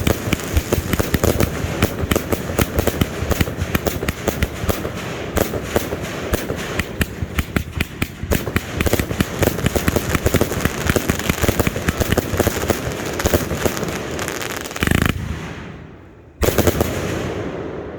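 118-shot firework cake firing a rapid barrage, many shots a second, for most of the time. Near the end it gives two separate loud bangs about a second and a half apart, each fading out.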